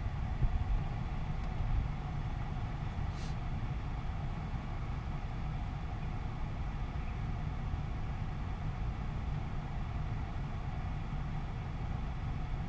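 Steady low rumble of a vehicle, with a faint hum above it and a brief soft hiss about three seconds in.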